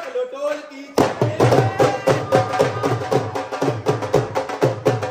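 Dhol drums struck in a fast, steady beat, starting loudly about a second in.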